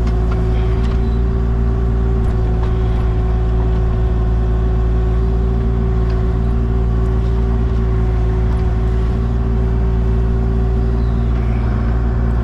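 Diesel engine of an excavator running steadily at constant working speed, a continuous low hum with a fixed pitch.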